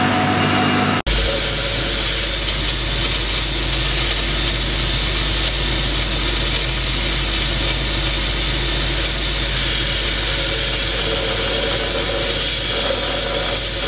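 A high-speed rotary carving tool runs for about a second and then cuts off suddenly. A jade-cutting circular saw follows: its motor holds a steady low hum, and a gritty hiss rises as a jade slab is pressed against the blade.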